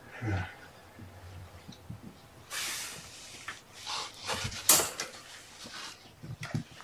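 Household handling noises: a stretch of rustling, several light knocks and one sharp click a little under five seconds in. At the very start a cat gives a short meow.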